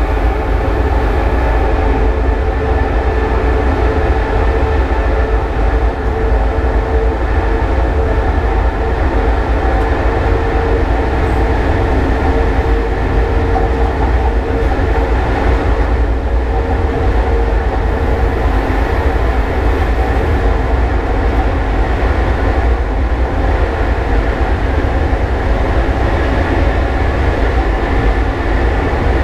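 Class 189 (Siemens ES64F4) electric locomotive running, heard from inside the driver's cab: a steady low rumble with a constant hum over it.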